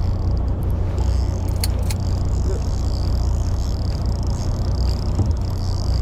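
Fishing boat's engine running steadily, a constant low hum under the noise of the hull and sea.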